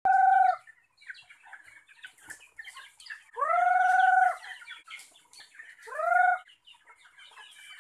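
A flock of free-range chickens and chicks clucking and peeping while pecking at scattered feed, broken by three loud, drawn-out high calls; the middle one is the longest.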